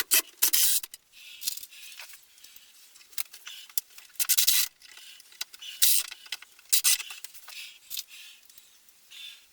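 Irregular scraping and rubbing with sharp clicks in between, from hand work on building materials.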